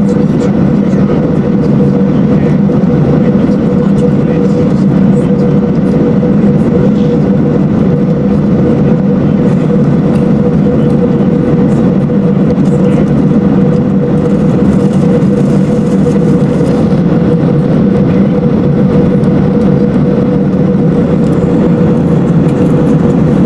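Steady cabin noise of an Airbus A380-842 airliner at cruise: an even rush of airflow with a constant low hum, unchanging throughout.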